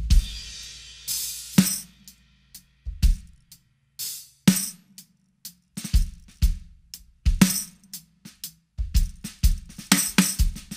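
Sonor AQ2 14x6 maple snare drum with a small tambourine jingle ring laid on its head, played in a drum-kit groove: each snare backbeat carries a jingle, doubling the snare with a tambourine, over bass drum and cymbals. A cymbal wash rings out at the start.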